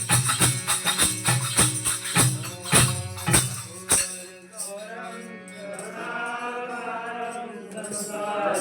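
Devotional aarti percussion: a drum and jingling tambourine beating fast and evenly, about four strokes a second, which stops abruptly about four seconds in. After it, a voice starts singing a drawn-out line.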